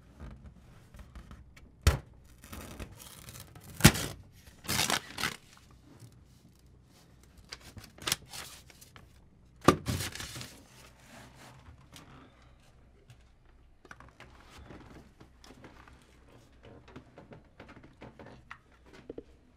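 Rummaging and handling noises: a few sharp knocks and thuds in the first half, with tearing and crinkling, then quieter scattered rustling.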